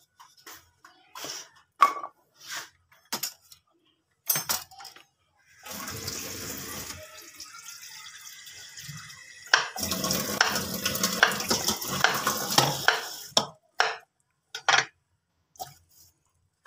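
Kitchen knife knocking and chopping on a wooden cutting board as potatoes are cut into small pieces. From about five seconds in, a tap runs steadily for several seconds, louder in its second half, before the knife knocks return near the end.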